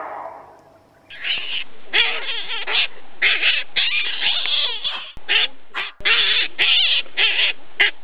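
An animal's repeated harsh calls: a rapid run of rough, chopped calls starting about a second in and going on nearly to the end.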